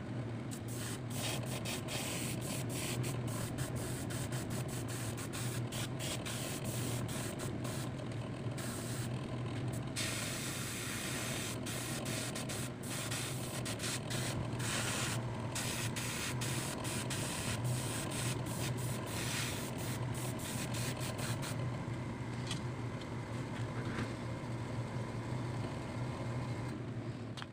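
Airbrush spraying paint: a hiss that starts and stops in many short bursts as the trigger is worked, with a few longer unbroken passes, over a steady low hum.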